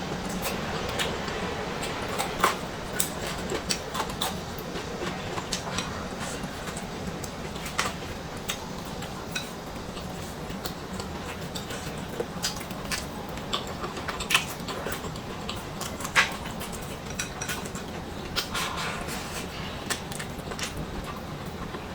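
Eating utensils clinking and tapping against bowls and dishes during a meal: scattered sharp clicks, irregular and a few seconds apart, over a steady low background hum.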